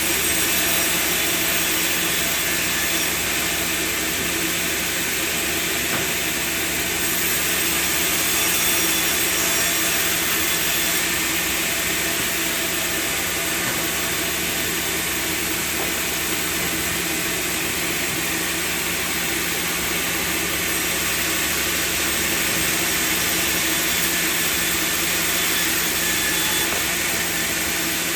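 Sawmill machinery running steadily: a constant mechanical hum under an even noise.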